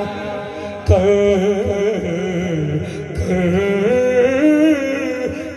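A man singing a naat into a microphone, drawing out a long, ornamented phrase whose pitch bends and wavers without a break for words. There is a low thump about a second in.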